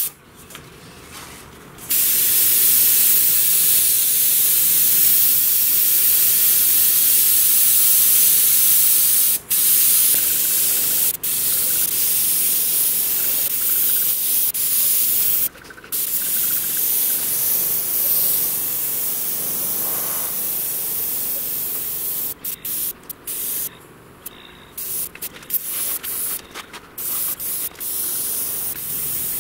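Siphon-feed airbrush spraying paint with a steady hiss of air through the nozzle, starting about two seconds in. The trigger is released briefly a few times, and near the end it sprays in many short stop-start bursts.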